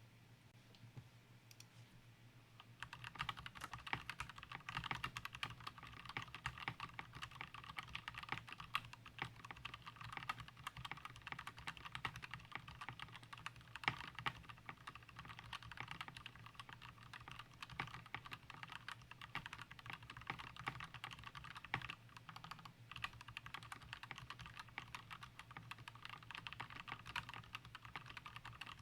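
Typing on a custom XD84 mechanical keyboard with lubed Gateron Yellow linear switches, a steel plate and PBT keycaps in a plastic case: a continuous stream of rapid key clacks. A few scattered keystrokes come first, and the typing picks up to a steady fast pace about three seconds in.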